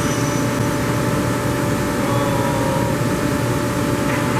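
Giddings & Lewis CNC vertical boring mill running under power: a steady, unchanging mechanical drone with a constant hum.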